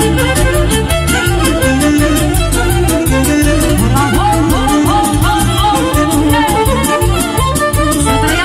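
Live band playing a lively instrumental Romanian folk dance tune for a hora, saxophones carrying an ornamented melody over a steady beat of about four strokes a second.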